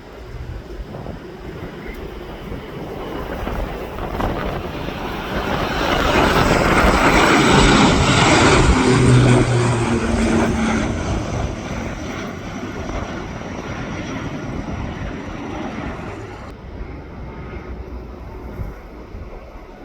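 Airliner passing close, its engine noise building to a peak about halfway through and then fading away, with wind rumbling on the phone's microphone throughout.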